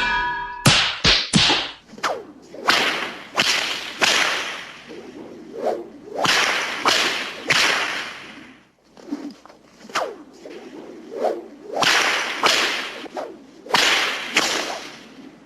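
A long series of whip cracks, each a sharp crack with a swishing whoosh, coming at an uneven pace of roughly one every half second to a second.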